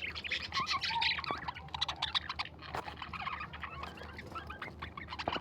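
A group of birds chirping and calling, with many short, overlapping calls in quick succession.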